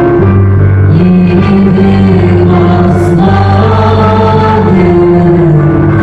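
A small group of voices singing a slow song with piano accompaniment, holding long notes over a sustained low piano line.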